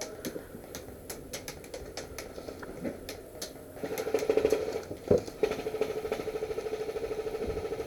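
Scattered sharp clicks of airsoft shots, then, about four seconds in, an airsoft electric gun opens up on full auto: a fast, even rattle with a motor whine that runs on to the end, broken once briefly.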